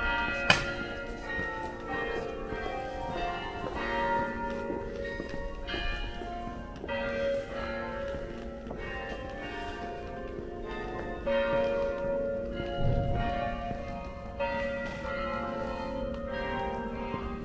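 Church bells ringing, overlapping strokes starting afresh every second or two and fading away, with a sharp click about half a second in.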